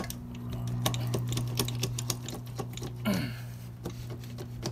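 Rapid, irregular light clicks and taps of hands handling the metal parts and wiring around a Yamaha YZ250's stuck cylinder, over a steady low hum.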